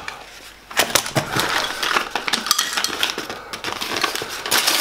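Cardboard packaging rustling and crackling, with metal clinks and clicks as the track saw's metal clamps in their cardboard insert are handled and set down. It starts about a second in.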